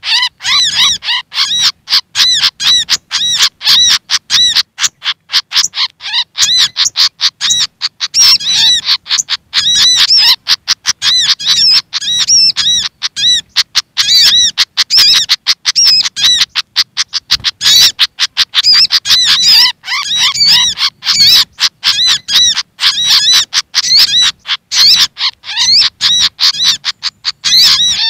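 Recorded bird-lure calls: agitated, noisy chattering of a Malaysian pied fantail (sikatan kipas) mixed with agitated sogok ontong calls. The calls come as a fast, unbroken run of short, high, arched chirps, several a second, and are loud throughout.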